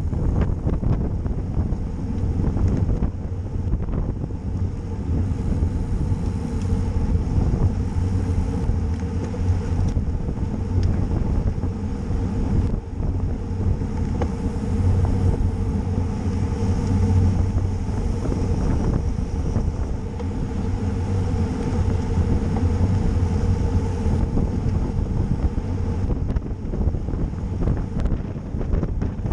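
Wind rushing over the microphone of a camera carried on a racing bicycle at speed, a low, steady rumble.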